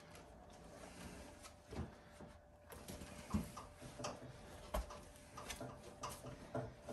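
Stuffed animals being pulled about and shifted inside a metal dumpster: soft rustling broken by a few sharp, irregularly spaced knocks and taps. A faint steady hum runs underneath.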